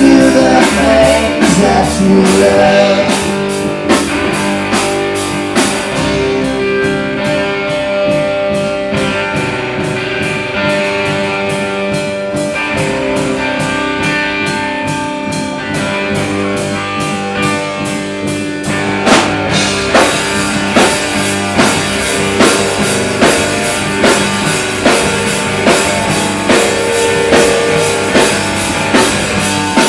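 Live rock band playing an instrumental passage: distorted electric guitar, bass guitar and drum kit. Through the middle the drums thin out under held guitar notes, then about two-thirds of the way through the full drum beat comes back in with steady, regular hits.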